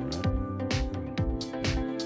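Background electronic music with a steady drum beat, about two beats a second, over held sustained tones.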